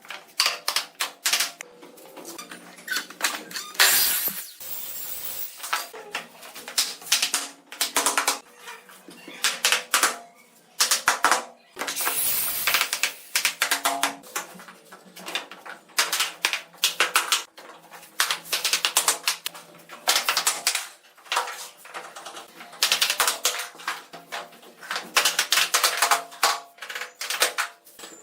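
Rapid, irregular clicking and knocking of work on bamboo or wood, with a few longer rasping stretches, one about four seconds in and another about twelve seconds in.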